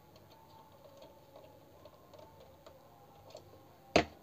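Faint small ticks and scrapes of an electrical plug being handled at a wall socket board, then one sharp loud click near the end as it is pushed home or switched at the board.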